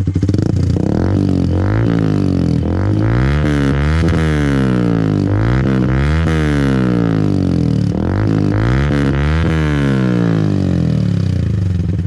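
Yamaha Sniper 150's single-cylinder four-stroke engine breathing through a Yoshimura Alpha exhaust with no silencer, revved up and let fall back several times, then settling to idle near the end.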